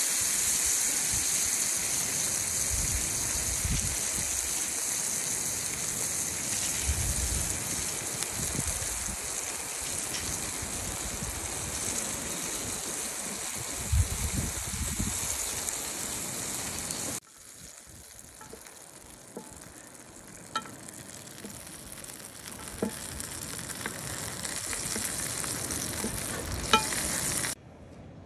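Tomahawk steak searing in a pan of hot oil, a loud, steady sizzle as the meat goes in. About two-thirds of the way through the sizzle turns much quieter, with a few sharp pops. It then builds again and cuts off near the end.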